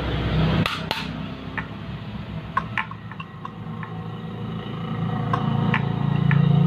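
A freshly rewound electric fan motor running on test, giving a steady electrical hum that grows louder near the end. Two sharp knocks come a little under a second in, with scattered light clicks after as the motor is handled.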